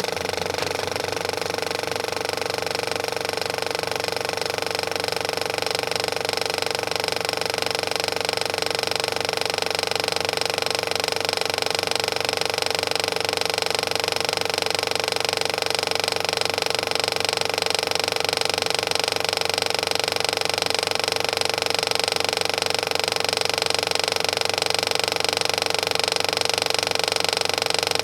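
Film projector running steadily: an even motor whir with the fast, regular clatter of the film being pulled through.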